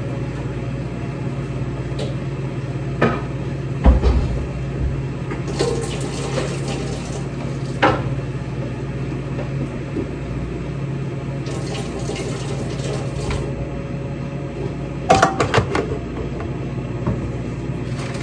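Kitchen clatter: things knocked and set down on a counter over a steady low appliance hum, with two spells of hiss like a tap running.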